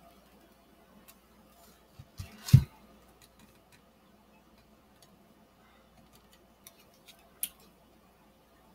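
Handling sounds of an epoxy-coated cattle skull being turned by hand on a table: a few knocks about two seconds in, the loudest a dull thump, and a single sharp click near the end, over quiet room tone.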